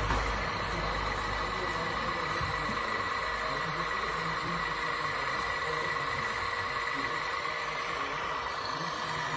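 Radio-controlled scale construction machine running with a steady, even whine.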